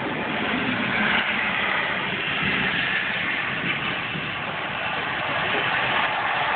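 Steady rushing road and engine noise heard from inside a moving car's cabin.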